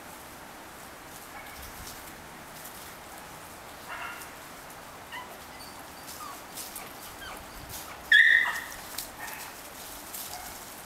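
Labrador puppies giving a few short, high-pitched squeaks and whines, with one much louder cry about eight seconds in.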